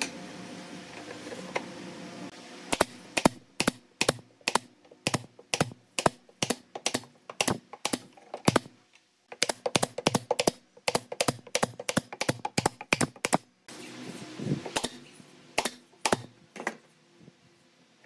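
F30 pneumatic brad nailer firing brads into pine strips: a quick run of sharp shots, about three a second, starting about three seconds in, then a few more spaced out near the end.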